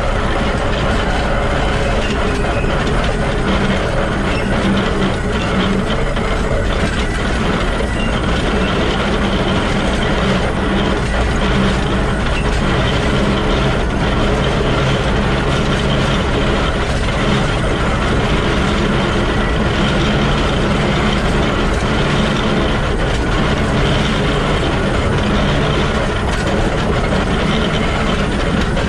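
Shay geared steam locomotive SL-31 running, heard up close at its truck: the bevel gears, drive shaft and wheels on the rails make a steady, dense mechanical clatter.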